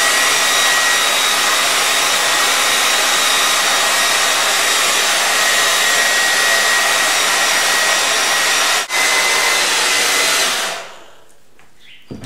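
Handheld hair dryer running on its cool setting: a steady rush of air with a faint motor whine, which stops near the end.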